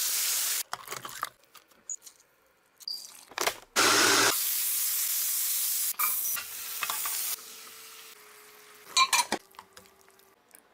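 Pan cooking: a loud sizzle as liquid is poured into a hot pan of charred tomatillos, peppers and onions, a short loud burst about four seconds in, then diced onions sizzling as they hit hot oil about six seconds in, and a few clicks of metal tongs against the pan near the end.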